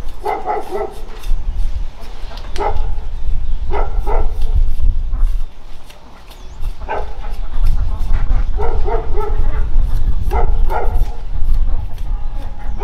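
A dog barking repeatedly, short single and double barks every second or two, over a steady low rumble.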